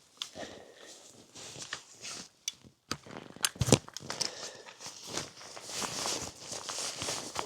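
Footsteps of a person walking over rough ground, irregular crunching steps, with a louder knock a little past halfway.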